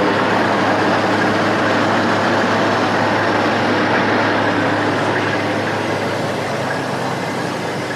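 Semi-truck diesel engine idling, heard from inside the cab as a steady low hum under an even rushing noise that slowly eases off.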